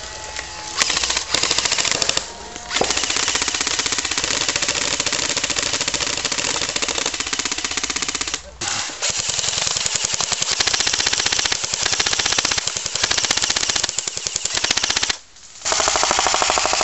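Airsoft electric rifle firing long fully automatic bursts: a fast, loud mechanical rattle. It breaks off briefly about two, eight and fifteen seconds in.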